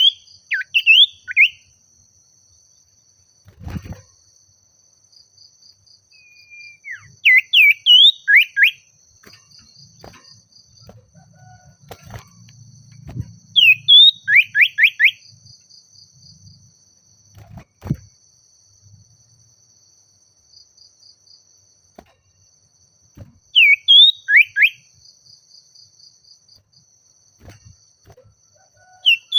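Common iora (cipoh) calling: bursts of three to five quick, sharp, down-slurred whistled notes, repeated every six to nine seconds. A faint steady high buzz and a pulsing trill run underneath.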